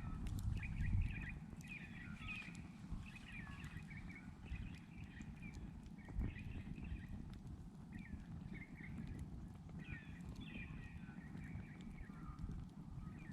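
Campfire crackling with scattered pops, one sharper pop about six seconds in, over a low rumbling background, while native Australian bush birds chirp and warble repeatedly.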